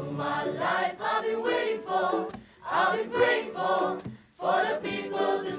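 A mixed choir of young men and women singing together, in phrases broken by two short pauses.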